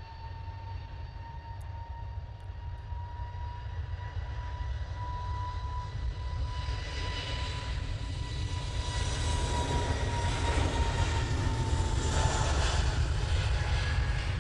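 Jet airliner's engines at takeoff power: a steady low rumble with a clear whine, and a rushing roar that builds and grows louder from about halfway in, while the whine drops a little in pitch near the end.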